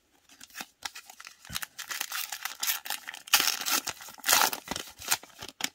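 Foil wrapper of a Magic: The Gathering booster pack being torn open and crinkled by hand: a run of crackling rips, the loudest a little past the middle.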